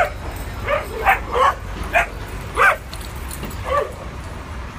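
Dog barking during rough play: about seven short, high barks in quick succession, stopping a little before the end.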